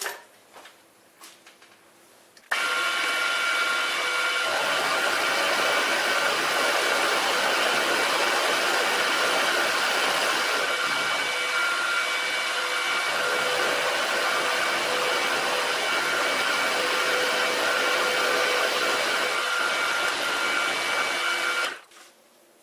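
Bernardo BF 30 G milling machine running, its end mill cutting aluminium: a steady, noisy whir with a few high whining tones. It starts suddenly a couple of seconds in and stops abruptly near the end.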